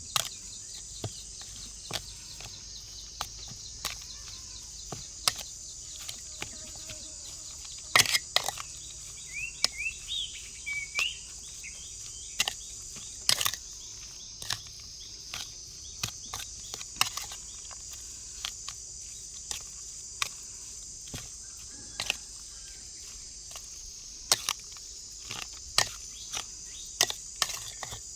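Steady high-pitched drone of insects, like crickets, with many irregular sharp knocks and clicks scattered through it. A bird gives a few short chirps about a third of the way in.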